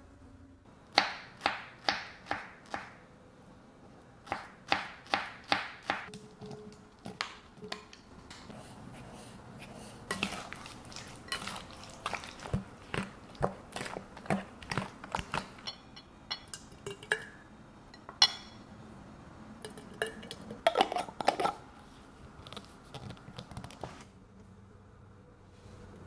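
Glass kitchenware being handled, with runs of sharp clinks and knocks against glass mixing bowls. In the middle, two wooden spoons stir and toss diced fruit in a glass bowl, giving a dense patter of small knocks.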